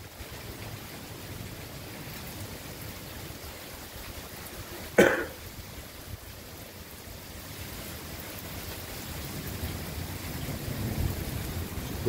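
Heavy rain pouring steadily, with a low rumble of thunder building near the end. A single short, sharp noise cuts in about five seconds in.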